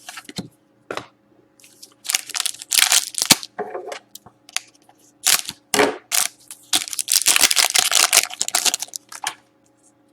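Foil wrapper of a 2014-15 Artifacts hockey card pack being torn open and crumpled, with the cards handled, in a few loud bursts, the longest from about two-thirds of the way through.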